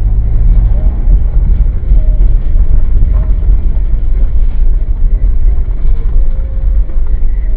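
Steady low rumble of a car's engine and road noise inside the cabin, as picked up by a dashboard camera's microphone.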